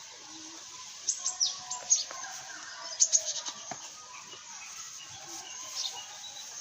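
Small birds chirping in short clusters of sharp, falling chirps: a group about a second in, another around three seconds in, and a last one near the end.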